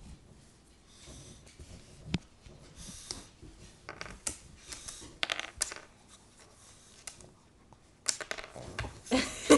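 A small dog sniffing and snuffling at a wooden table top and mouthing up a bit of biscuit, with light scrapes and clicks of its muzzle and teeth on the wood.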